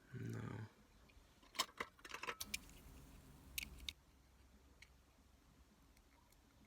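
A small drill buzzes for about half a second. Then comes a run of sharp metallic clicks and clinks from the die-cast toy car and small tools being handled, with two more clicks near the end.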